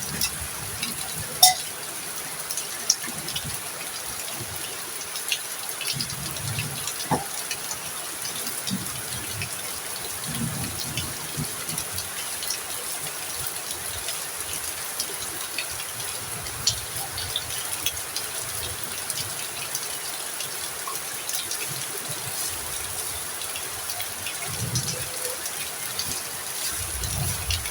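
Heavy rain falling steadily, a constant hiss with scattered sharp drop hits close by.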